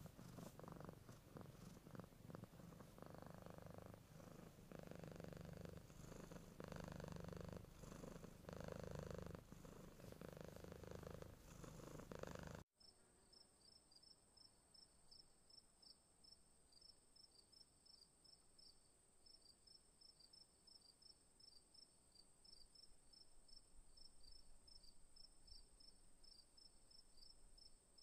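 A sleeping cat purring, a low rumble that pulses about every second and a half. It cuts off abruptly about halfway through, and faint insects chirping over a steady high buzz follow.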